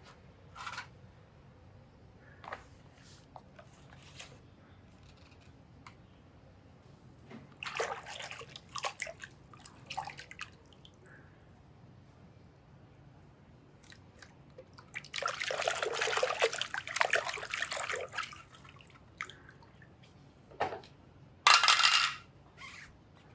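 Water splashing and dripping in short, irregular bursts as toy vehicles are washed, with a steadier stretch of splashing water lasting about three seconds past the middle and a loud brief splash near the end.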